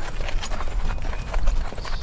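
Horse walking, its hooves striking the ground in an uneven clip-clop, with a low rumble underneath.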